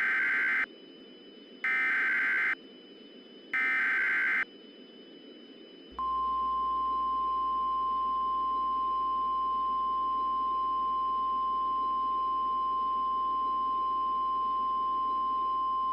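Emergency Alert System SAME header: three short bursts of warbling, modem-like data tones about a second apart. Then the NOAA Weather Radio warning alarm tone, one steady high tone with a low hum under it, held for about ten seconds. This announces an urgent watch or warning.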